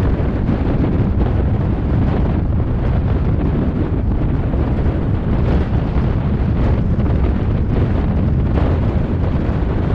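Wind buffeting the microphone: a loud, steady low rumble with small gusts and no clear engine tone.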